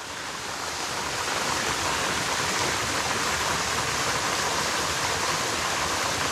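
Waterfall rushing: a steady roar of falling water that grows a little louder over the first two seconds, then holds level.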